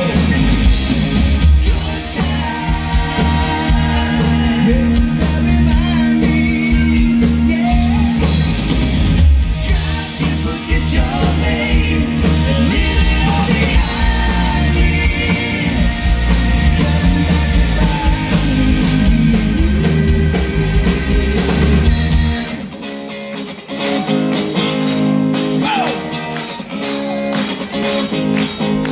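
Live rock band playing: electric guitars, keyboard, bass and drums with singing. About 22 seconds in the bass and kick drum drop out, leaving voices over a quick, even tapping beat.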